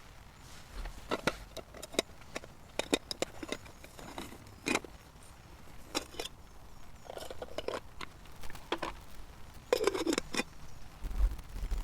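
Camp cooking gear being handled: irregular clicks, knocks and light scrapes, with a short busier clatter about seven seconds in and again near ten seconds.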